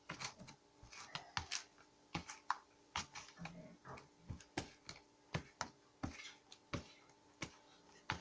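Homemade glue-and-detergent slime being squeezed and worked by hand, giving off irregular small sticky clicks and pops.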